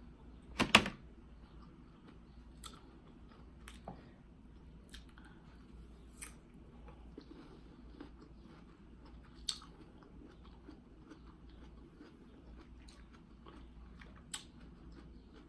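A person chewing a mouthful of cantaloupe close to the microphone, with scattered short wet mouth clicks. A single sharp, loud sound comes about a second in.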